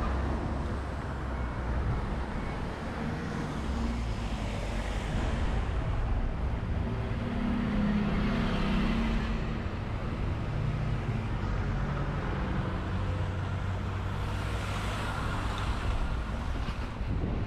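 Wind noise on the microphone and ride noise from a moving bicycle: a steady, uneven rush with no distinct events.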